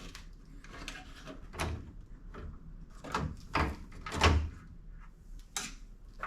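A handful of separate plastic knocks, clicks and scrapes from handling the plastic trim panel beside the truck's lower grille, as it is worked at for prying off its clips.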